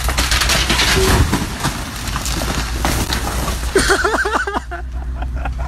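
A tall stack of cardboard boxes topples off a forklift and crashes to the floor, a loud clatter of many impacts over about three seconds, over the steady low hum of the forklift's engine running. A person's voice cries out near the end.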